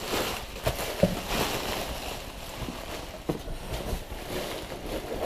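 Plastic air-pillow packing crinkling and rustling as it is handled and pulled out of a cardboard box, with a few light knocks, the sharpest about a second in.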